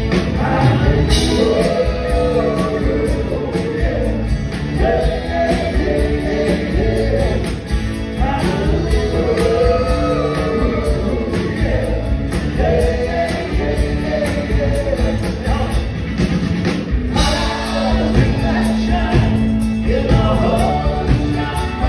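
Live rock band playing: electric guitars, bass and drums with a steady beat, with men singing the melody together at the microphones.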